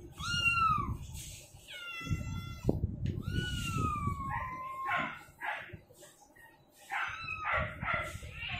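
A cat meowing repeatedly: several drawn-out meows, the longest slowly falling in pitch, with shorter ones near the end.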